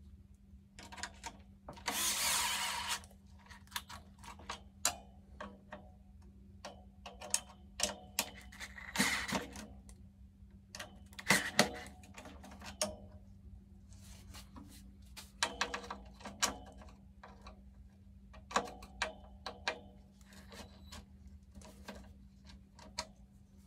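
A power tool runs in one short burst of about a second, then many scattered clicks and knocks of parts and hand tools being handled, with a few shorter noisy stretches, over a faint steady hum.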